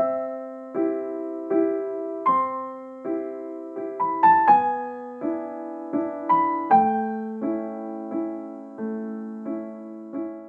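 Solo piano intro music: soft chords struck about once every three-quarters of a second, each left to ring and fade.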